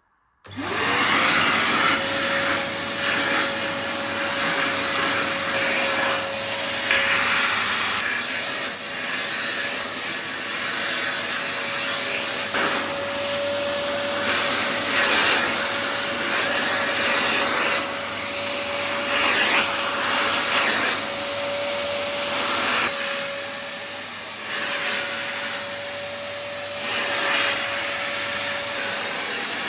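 Kärcher WD 3 wet-and-dry vacuum switched on about half a second in: the motor spins up to a steady high whine over a loud rush of suction. The hiss swells and eases every second or two as the suction is worked over something.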